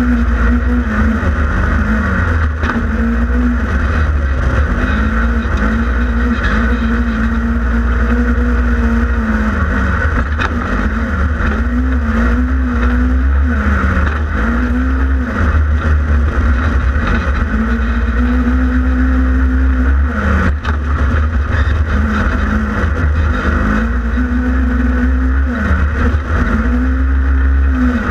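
Polaris RZR 1000XP side-by-side's twin-cylinder engine running hard under race throttle, its pitch repeatedly dropping and climbing again every second or two as the throttle is lifted and reapplied, over a heavy low rumble.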